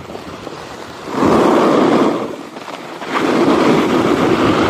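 Skis scraping across an icy piste in two turns, each a loud rasping surge lasting about a second and a half, the second beginning about three seconds in. The hard ice under the skis makes the scrape.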